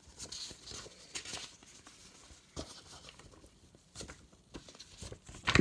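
Paper rustling with scattered light clicks as a folded poster is handled and taken out, with a sharper crinkle or knock just before the end.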